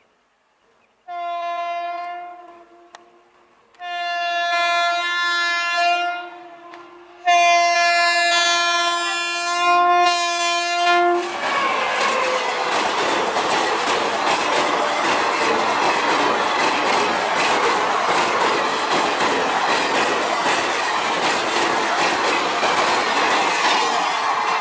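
WAP-5 electric locomotive's horn sounding three long, steady blasts, the last running straight into the train passing at high speed over a bridge. A loud, dense rush of the passing coaches follows, with rapid clickety-clack of wheels over the rail joints.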